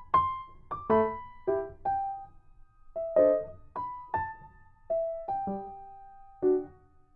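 Background piano music: a slow melody of single notes, each struck and left to fade.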